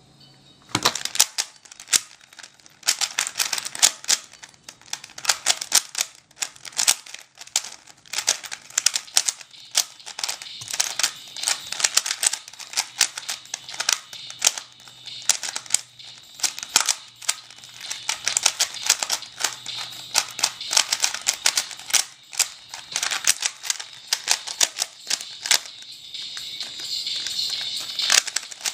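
Rubik's brand cube, modified into a speedcube, being turned fast: a rapid, uneven stream of plastic clicks and clacks from the layers snapping round, with a smoother scraping turn near the end.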